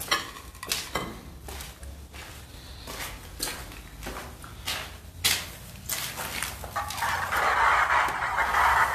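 Footsteps and scuffs on a gritty concrete floor as someone walks along a narrow corridor. About seven seconds in, a steady rushing hiss rises and becomes the loudest sound.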